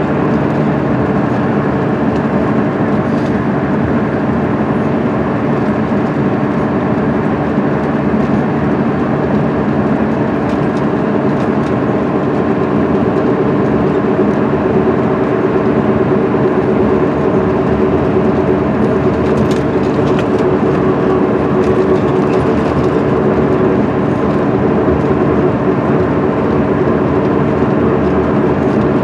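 Cummins ISM diesel engine of an MCI D4500CL coach running steadily at freeway cruising speed, heard from inside the bus over road and tyre noise. The engine note holds an even pitch throughout.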